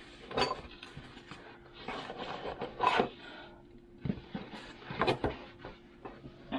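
Handling noises of a door-hardware job: a few irregular knocks and clicks with scraping and rubbing of wood and hardware, over a faint steady hum.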